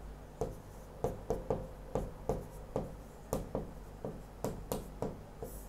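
Pen writing on a board: a run of short, irregular scratching strokes and taps, about two or three a second, as words are written by hand.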